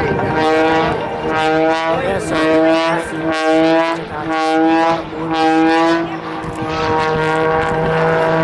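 Aerobatic biplane's piston engine and propeller giving a steady droning note that holds one pitch. Its loudness swells and dips about once a second as the plane manoeuvres.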